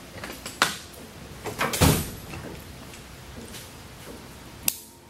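Clicks and knocks of engine-mount hardware and tools being handled as rubber mount cushions, spacers and bolts are fitted between a Lycoming aircraft engine and its tubular engine mount: a sharp click about half a second in, a cluster of knocks ending in a heavy thump near two seconds, and another sharp click near the end.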